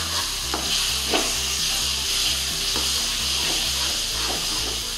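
Spiced onion-tomato curry masala sizzling in hot oil in a pan as it is stirred, with a few short stirring strokes through the steady sizzle. The oil has separated from the masala, the sign that it is fully fried.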